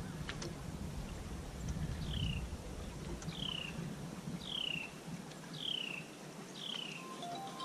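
A bird calling: a clear whistle sliding down in pitch, repeated evenly about once a second, six times, starting about two seconds in. Light wind and water noise sits underneath, stronger at first.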